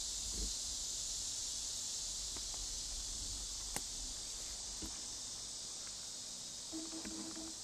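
A steady, high-pitched chorus of insects, broken by a few light clicks and, near the end, a short low tone.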